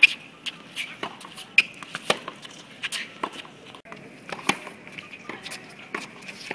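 Tennis rally on a hard court: sharp pops of rackets striking the ball, the loudest right at the start from the near player's forehand, with fainter knocks from across the court between.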